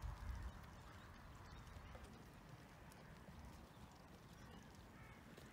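Faint hoof steps of a mule walking on wet, muddy ground, with a brief low rumble at the very start.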